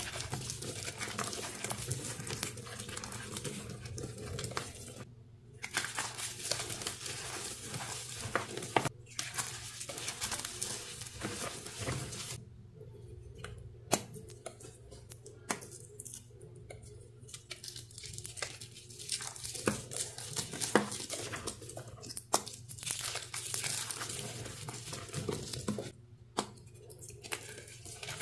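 Dyed gym chalk reforms being crushed and crumbled by hand: dry crunching and crackling with a gritty, powdery rustle, in bursts broken by a few short pauses.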